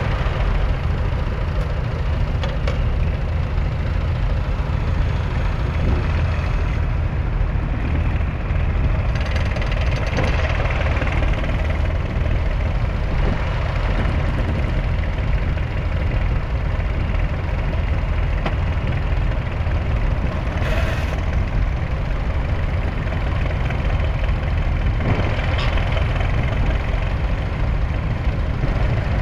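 A 1981 Leyland 802's 3.8-litre four-cylinder diesel engine running steadily, with a short hiss about three quarters of the way through.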